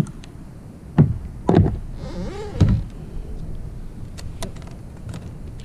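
Fishing rod and gear being handled aboard a plastic kayak: a few knocks and low thumps in the first three seconds, then several light clicks.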